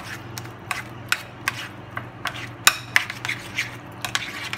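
A spoon clinking against a bowl, about two to three times a second, as the hummus is stirred together with the added yogurt. A steady low hum runs underneath.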